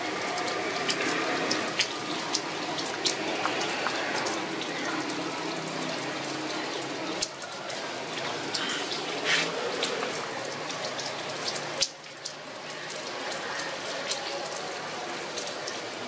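Steady rain falling, with many individual drops ticking sharply on nearby surfaces.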